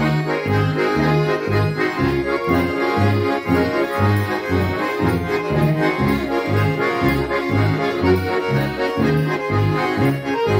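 Swiss Ländler band playing a schottische: two chromatic accordions and a Schwyzerörgeli button accordion play the tune and chords over a double bass. The bass marks the beat, about twice a second, alternating between two low notes.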